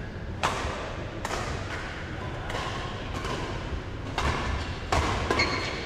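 Badminton rally: a string of sharp racket hits on the shuttlecock, about seven at uneven spacing, mixed with players' footfalls on the court.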